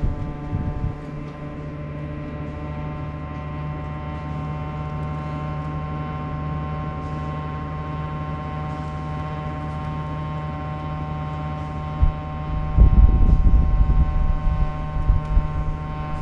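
Sharp AY-J40S-W air conditioner running with an abnormal steady hum made of many pitches at once. The owner links the noise to a frequency fault that repair has not cured. About thirteen seconds in, a louder low rumble joins it.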